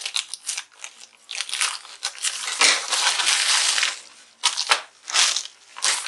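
Scissors cutting open a plastic courier mailer bag, with the plastic crinkling and rustling as it is cut and pulled apart. The sound comes in irregular bursts and is loudest in the middle.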